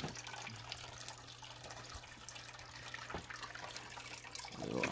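Water from an aquarium filter trickling and dripping into the tank, with the flow turned down low, over a low steady hum. A brief thump near the end.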